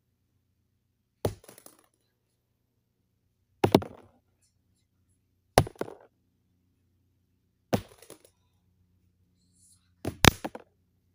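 A series of sharp knocks about two seconds apart, each trailing off in a brief clatter; the last comes as a quick cluster of two or three hits.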